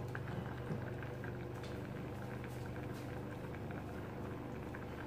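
Cream sauce bubbling in a stainless steel saucepan as it is boiled down to thicken, a fine steady crackle over a low hum.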